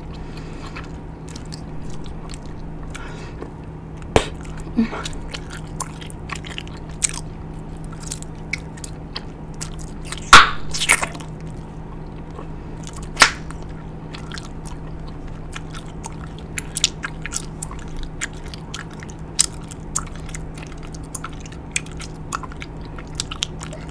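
Bubble gum being chewed close to the microphone: wet smacks and clicks throughout, with a few louder snaps, the loudest about ten seconds in.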